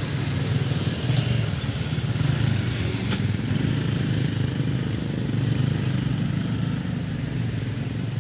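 Motorcycle and car engines running at low speed in a slow-moving queue of traffic, a steady low hum. A single sharp click about three seconds in.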